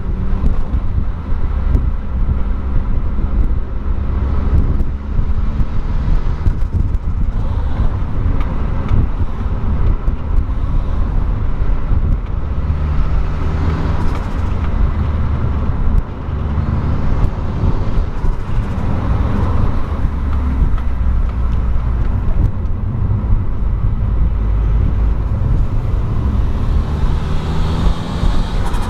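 Car engine running continuously, its note shifting up and down as the revs change, with a brief dip in level about halfway through.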